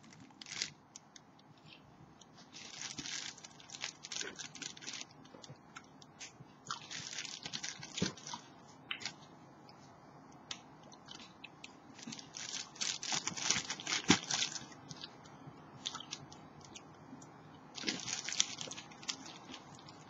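A clear plastic bag crinkling in several bursts as grapes are picked out of it, with close-up biting and chewing of grapes.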